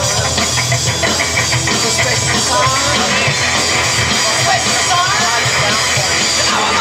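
Live band playing a loud, dense number on hollow-body electric guitar, drum kit and upright double bass, with a few sliding guitar or vocal notes over the top.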